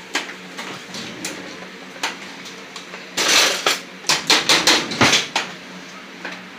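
Kitchen clatter of pots, dishes and utensils: scattered clinks, a short rattle about three seconds in, then a quick run of sharp knocks.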